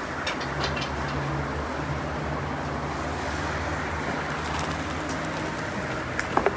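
Steady low rumble of background noise, with a short burst of soft knocks near the end as a basketful of baked samsa is tipped out of a wire basket into a wooden crate.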